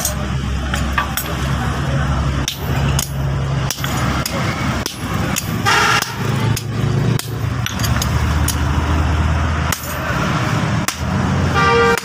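Blacksmith's hammer striking hot steel on an anvil while forging an axe head: a run of sharp, irregular blows, roughly one to two a second, over a steady low hum. A short pitched tone sounds near the end.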